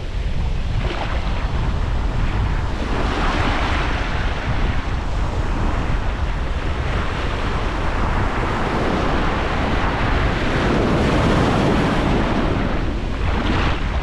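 Atlantic surf breaking and washing up the beach, swelling louder about three seconds in and again after ten seconds, with wind rumbling on the microphone underneath.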